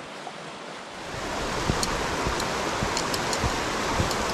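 Rushing stream water, a steady wash that grows louder about a second in, with scattered footsteps on the trail and small clicks of carried gear.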